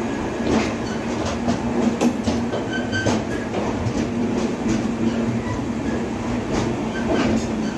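A train running on the rails, its wheels clattering over the rail joints, with a steady hum underneath.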